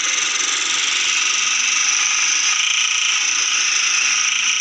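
Small electric motor and gearbox running with a steady high-pitched whine.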